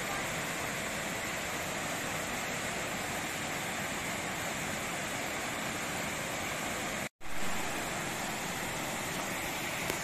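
Steady rush of a waterfall pouring over rock ledges into a pool, broken off for an instant about seven seconds in.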